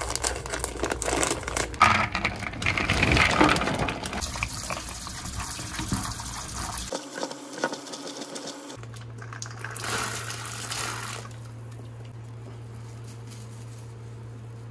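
Crinkling and rattling of a plastic bag of hominy kernels being handled and emptied. About three seconds later comes a short run of tap water as the kernels are rinsed by hand, over a low steady hum.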